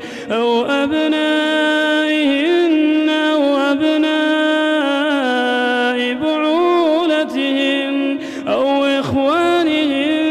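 Quran recitation in a man's melodic chanting voice: a single voice holding long, drawn-out notes with ornamented turns. It pauses briefly for breath right at the start and again about eight seconds in.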